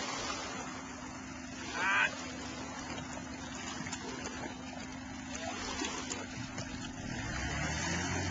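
Steady low engine hum with light water sounds around a small boat at the bank. A short, high warbling chirp about two seconds in is the loudest moment, and a deeper engine hum builds near the end.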